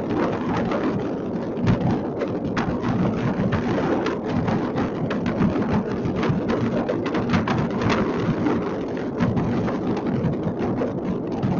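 Dense, unbroken barrage of many fireworks going off across a city: countless overlapping bangs, pops and crackles merging into a continuous rumble.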